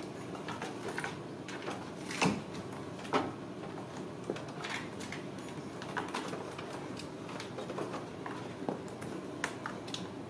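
Light, scattered knocks and scrapes of a kitten moving about inside a plastic toy car, the two loudest bumps close together a couple of seconds in, over a steady background noise.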